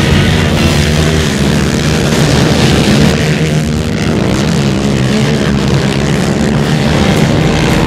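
Racing quad (ATV) engines buzzing as they run the dirt track, their pitch rising and falling with the throttle, most plainly around the middle.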